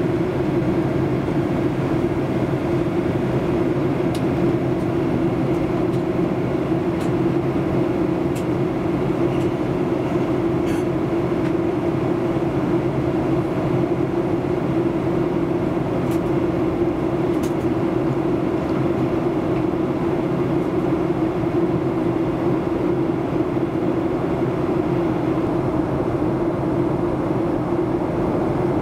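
Boeing 737-800 cabin in flight: the steady drone of the engines and the airflow over the fuselage, with a low hum running through it and a few faint ticks.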